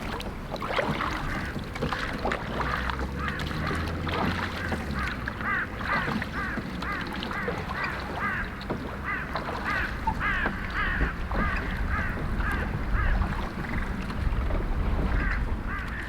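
Ducks quacking over and over, about two short calls a second, over a low rumble.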